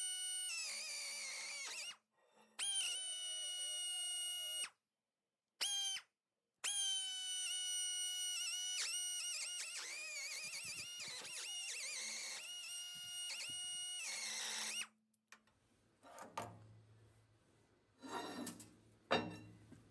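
High-speed die grinder with a carbide end mill chamfering the edge of a metal collar, giving a loud, high-pitched steady whine. It cuts out briefly three times early on, its pitch wavers and dips from about eight seconds in as the cutter bites, and it stops about fifteen seconds in, leaving a few faint knocks.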